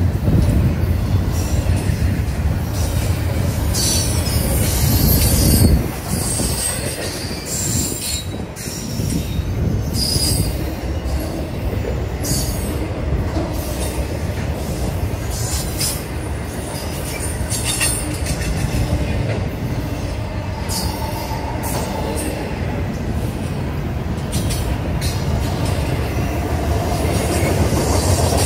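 Norfolk Southern intermodal freight train's container and trailer cars rolling past: a continuous low rumble of steel wheels on the rails, with short high-pitched bursts every few seconds, loudest about four to six seconds in.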